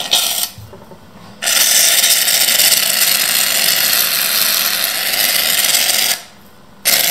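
Aerosol can of shaving foam dispensing into a bowl: a steady hiss of foam spraying out for about five seconds, a brief pause, then the hiss starts again near the end.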